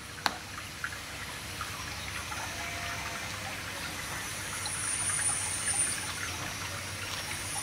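Steady, low outdoor background noise with a sharp click just after the start and a lighter one a little later; a faint high whistle comes in during the second half.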